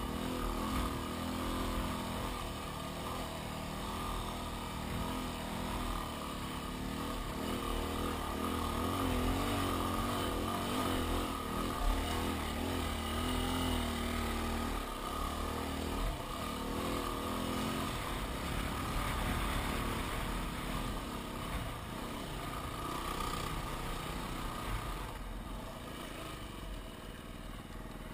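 Yamaha WR250R's single-cylinder four-stroke engine running as the bike is ridden along a sandy track, its note rising and falling with the throttle.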